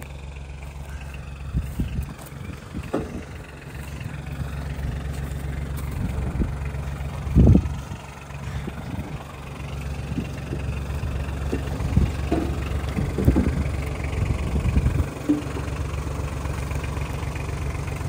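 Gravely Atlas JSV utility vehicle's engine idling steadily, with a few short thumps over it, the loudest about seven seconds in.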